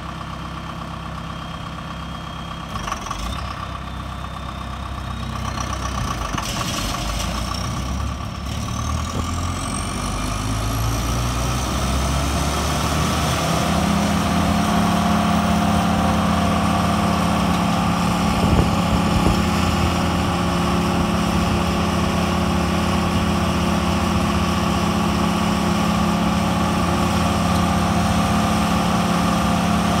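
Vermeer BC1500 wood chipper's diesel engine running, throttled up from idle to working speed over about ten seconds with a whine that climbs in pitch, then running steady and louder.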